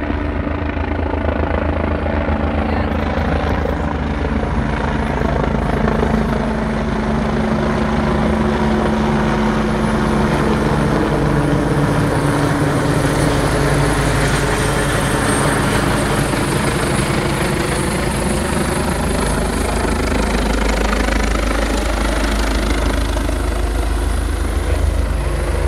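Rescue helicopter flying low overhead, loud and steady, its tone sweeping as it passes over around the middle.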